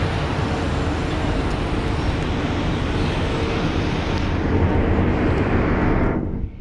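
Loud, steady engine noise with a low rumble and a held hum. It drops off sharply about six seconds in.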